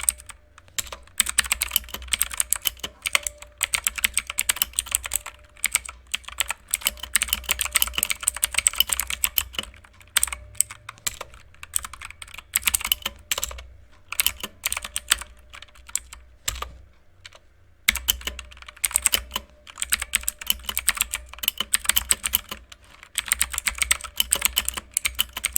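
Fast typing on a mechanical keyboard with clicky blue switches: bursts of sharp key clicks with short pauses, and a longer pause about two-thirds of the way through.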